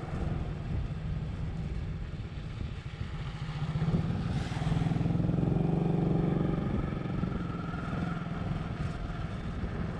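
Motorcycle engine running while riding, getting louder for a couple of seconds about halfway through, with wind noise.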